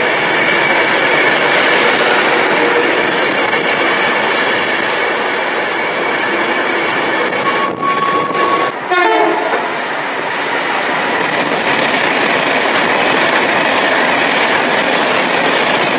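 Electric express train passing through the platform at speed: a loud, steady rush of wheels and air with a faint whine, and a short single-note horn call about halfway through.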